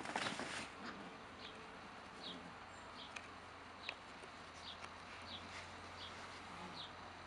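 Whippet puppies scuffling and jumping on a fabric play tunnel, with a brief burst of rustling and knocks at the start. After that the background is quiet, with a faint short high chirp repeating about every second.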